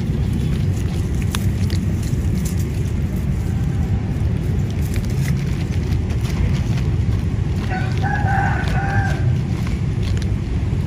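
A rooster crows once, about eight seconds in, over a steady low rumble. Faint clicks of cats crunching dry kibble run through it.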